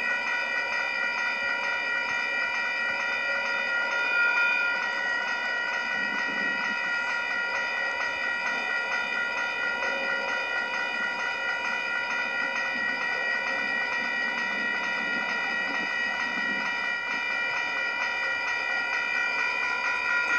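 Railroad crossing warning bell ringing rapidly and steadily while the gates are down and the lights flash, a crossing that the uploader says is malfunctioning and keeps activating even after the trains have gone by.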